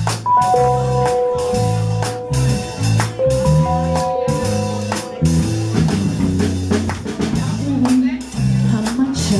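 Salsa band playing live: a bass line and drum kit with percussion under long held notes from a melody instrument, with no singing yet.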